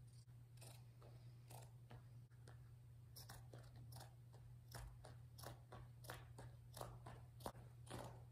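Pinking shears snipping through cotton drop-cloth fabric: a steady run of faint snips, about two a second.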